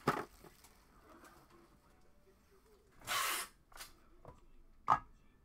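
Trading cards and their packaging being handled: a few short rustles and slides, the longest about three seconds in, and a sharp tap near the end.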